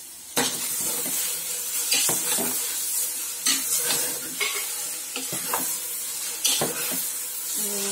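Metal spoon stirring fresh fenugreek leaves into the vegetables in an aluminium pressure cooker, with repeated scrapes and clicks of the spoon against the pot over a steady sizzle from the hot pan. The first loud scrape comes about a third of a second in.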